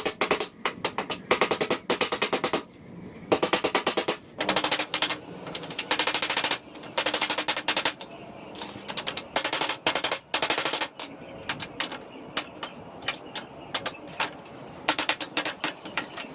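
Rapid trains of sharp impacts on pallet wood, coming in bursts of under a second with short gaps between, about a dozen bursts.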